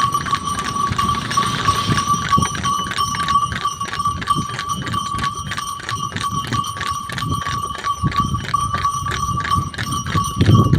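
Bullocks pulling a cart at a fast run through sand, hooves clopping in a quick, even rhythm of about three to four beats a second, with a rumble from the cart underneath. A steady high ringing tone carries on above it throughout.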